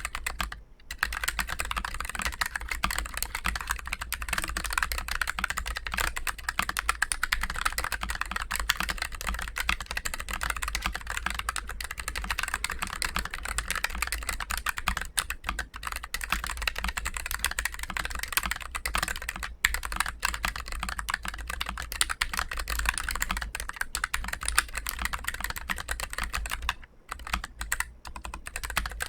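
Fast, continuous typing on a Keychron K3 Pro low-profile mechanical keyboard with Gateron low-profile Brown tactile switches: a dense stream of light key clicks, with a brief pause about a second in and another near the end.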